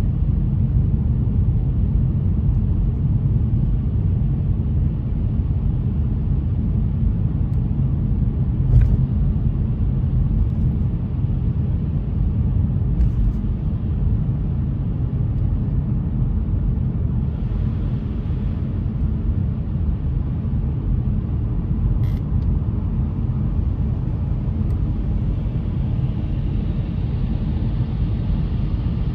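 Steady low rumble of a car on the move, road and engine noise. There are two brief clicks, about nine seconds in and again past twenty seconds.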